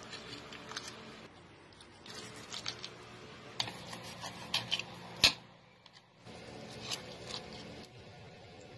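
Steel knife and fork clicking and scraping against a plate while cutting through a cooked beef steak: scattered light clicks, with one sharper click a little past the middle.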